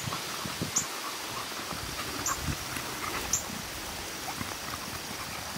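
Footsteps on a dirt trail while walking a dog, with a steady outdoor hiss. Short, high chirps come now and then, about once a second.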